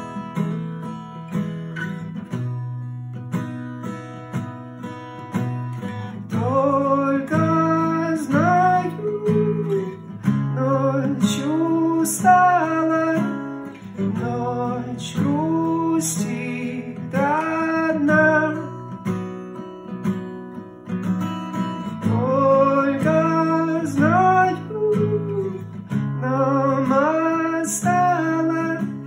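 Mahogany acoustic guitar playing a slow lullaby chord pattern. About six seconds in, a man's voice joins in, singing the melody over it.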